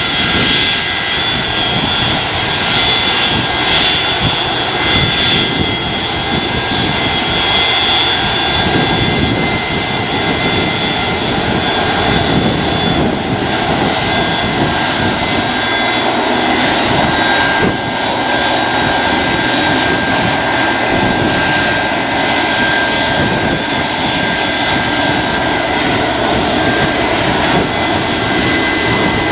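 Boeing 737-200 freighter's two Pratt & Whitney JT8D turbofans running at taxi power: a loud, steady rumble with several high whining tones over it.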